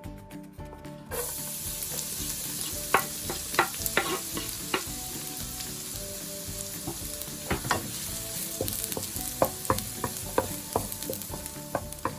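Food sizzling in hot oil in a frying pan. The sizzle starts suddenly about a second in, as food goes into the oil, then holds steady. A cooking utensil clacks against the pan now and then while the food is stirred.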